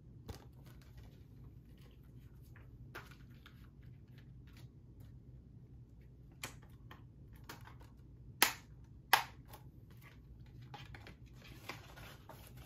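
Plastic Blu-ray case being handled: soft clicks and rustling, with two sharp snaps about a second apart a little past the middle.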